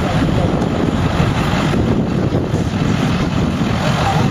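Pickup truck's engine running with a steady, loud rumble.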